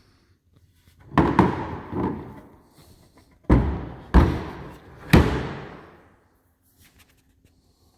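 A run of about six heavy wooden thumps and knocks over some four seconds, each trailing off over about a second: a carved wooden piece being handled and turned over.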